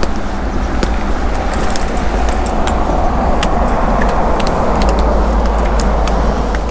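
A motor running steadily with a low drone, with light metallic clicks and rattles scattered over it.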